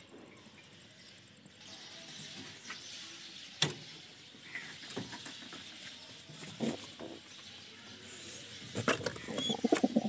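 Pigeons moving about in a wooden nest box: scattered taps and knocks on the wood, with a busier, louder spell of knocking and scuffling near the end.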